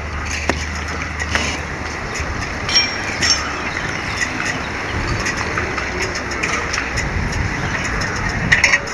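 Light knocks and clinks from an aluminium ladder as a firefighter climbs it, a few times, over a steady low outdoor rumble.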